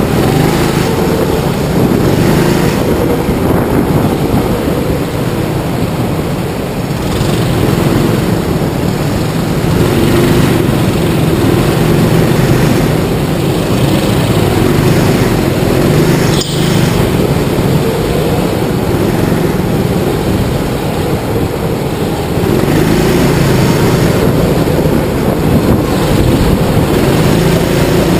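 Rental go-kart small engine at racing speed, heard from on board, running hard with its note rising and falling through the corners, other karts running close by. A single brief knock about halfway through.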